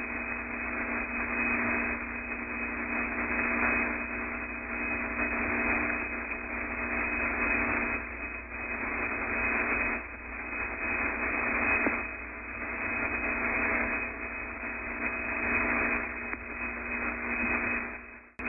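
Steady hiss and static on the Apollo 8 space-to-ground radio link with no one talking. A steady hum lies under it, and the level swells and sags a little. Near the end the signal drops out briefly with a click.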